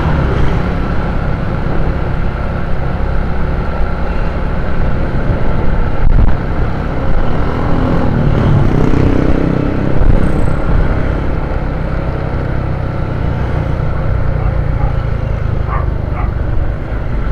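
Motorcycle riding at road speed: steady engine drone mixed with wind and road rumble on the bike-mounted microphone, with passing traffic around.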